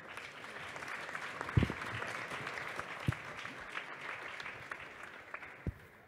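Audience applauding, the clapping fading away near the end, with a few dull thumps.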